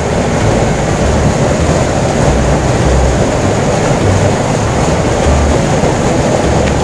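Fast-flowing water rushing down a concrete irrigation canal, a loud steady rush, with wind buffeting the microphone in irregular low rumbles.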